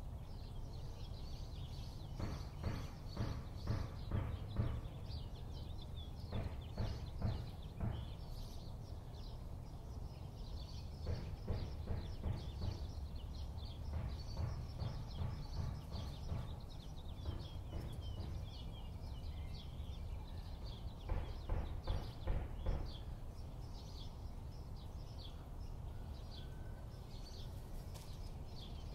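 Small birds chirping throughout over a low steady rumble of outdoor noise, broken several times by runs of quick sharp taps.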